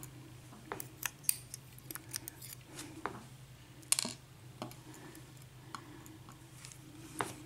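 Light, irregular metallic clicks and ticks of small lock pins and tools being handled on a work surface, the sharpest about a second in and about four seconds in, over a steady low hum.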